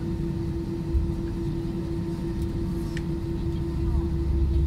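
Airbus A320 cabin noise while taxiing: a steady engine and airflow hum with one constant tone, and a low rumble that grows louder near the end.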